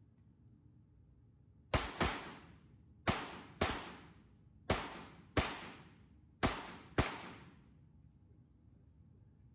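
Pistol shots in an indoor range: eight shots fired in four quick pairs, the pairs about a second and a half apart. Each shot has a ringing echo that dies away.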